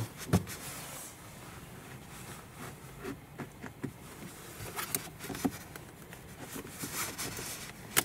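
Handling noise of a plastic zip tie and wire being worked through a car's plastic door trim panel: scattered light clicks and rustling, busier in the second half.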